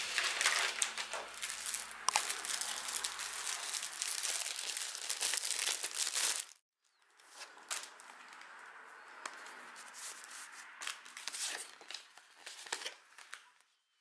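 Plastic mailer bag crinkling and rustling as it is handled and opened, for about six and a half seconds. After a brief break, softer rustling follows as a cloth pouch is drawn out and handled.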